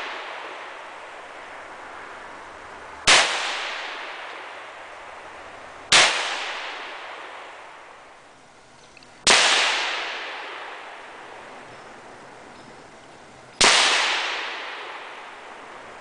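DPMS Prairie Panther .223 Remington semi-automatic rifle fired four times, slow aimed shots about three to four seconds apart. Each sharp crack trails off in a long echo.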